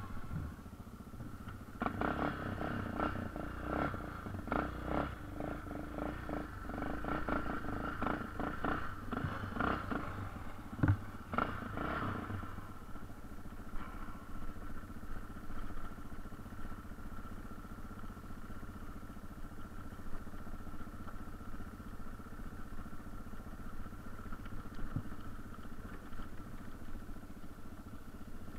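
Yamaha TT600R enduro motorcycle's single-cylinder four-stroke engine running while riding off-road. From about two to twelve seconds in, a run of rattles and knocks comes from the bike over rough ground. After that the engine runs on more evenly.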